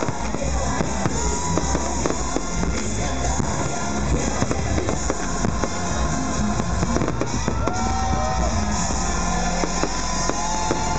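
Fireworks salute going off, many bangs and crackles in quick succession, over loud music from a sound system.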